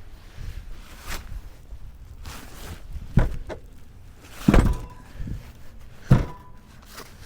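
Three heavy thunks, about a second and a half apart, with a few lighter knocks between them over a low background hum.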